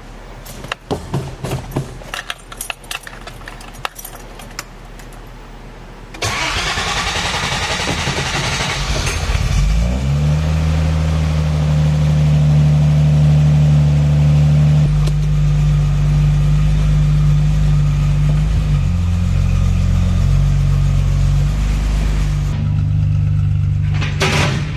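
Infiniti G37 Coupe's 3.7-litre VQ37VHR V6 on its factory exhaust starting up: a few clicks and knocks, then about four seconds of cranking before the engine catches. It runs at a fast idle, then drops to a lower steady idle partway through.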